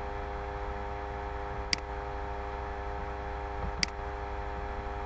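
Two sharp computer mouse-button clicks, about two seconds apart, over a steady electrical hum.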